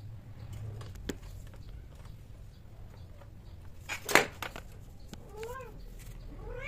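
Domestic cats mating: a short, loud burst of noise about four seconds in, then a few short cat meows, each rising and falling in pitch, from about five seconds on.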